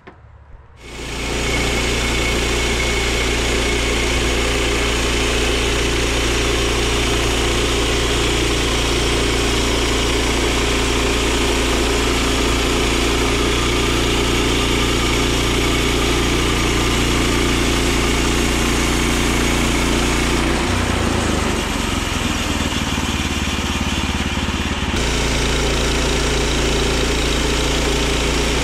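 Woodland Mills HM122 portable bandsaw mill running as its blade is pushed through a pine log, its small gasoline engine running steadily. The sound comes in suddenly about a second in, and its tone shifts briefly about two-thirds of the way through.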